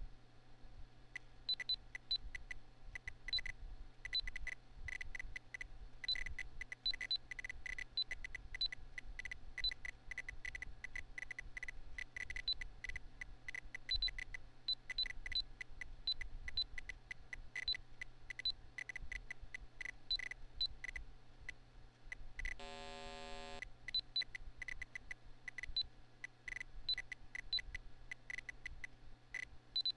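A computer's internal PC speaker beeping in irregular runs of short, sharp beeps, sometimes several a second, each marking a magnitude 6.0–6.9 earthquake in a data playback. About 22 seconds in, a single lower, buzzy long note lasting about a second marks a magnitude 8.5-plus quake. Under it runs the steady low hum of the computer's fan.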